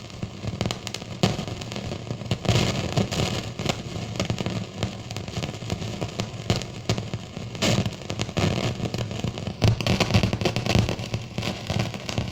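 Continuous irregular crackling and popping over a steady low hum: an abnormal noise from a machine or device that has just been switched on with nothing connected to it.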